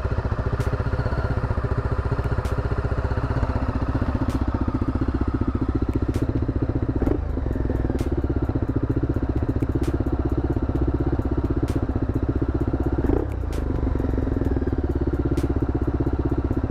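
2003 Honda Superhawk 996 (VTR1000F) 90-degree V-twin engine running steadily at idle, its note briefly changing twice.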